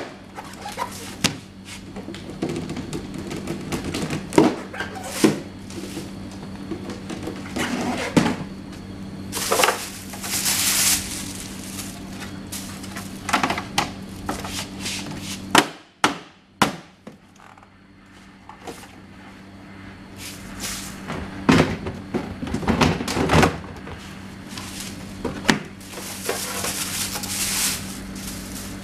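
Irregular knocks and thunks as white drawer panels are handled and fitted together during furniture assembly, with two stretches of rustling, over a steady low hum.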